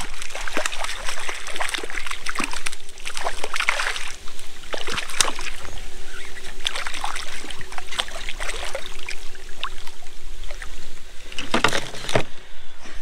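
Water splashing and sloshing around a hooked palometa (piranha) as it thrashes at the surface beside a kayak, with many irregular small splashes and a louder burst of splashing shortly before the end as the fish is pulled out of the water.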